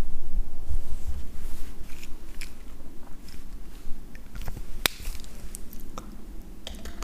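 Close-miked handling of makeup items: soft rubbing and scattered small clicks and taps, with one sharper click about five seconds in.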